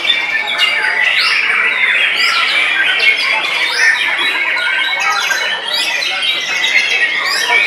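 White-rumped shamas (murai batu) singing in competition: a loud, dense chorus of overlapping whistles, trills and runs of rapid repeated notes.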